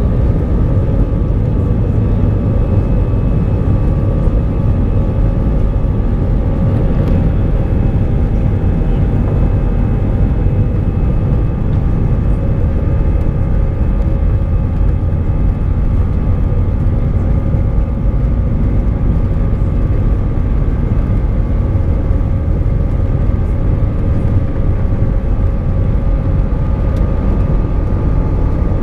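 Airbus A320 jet engines heard from inside the cabin over the wing, from taxi onto the runway through the takeoff roll up to rotation: a loud, steady rumble with several steady whining tones above it.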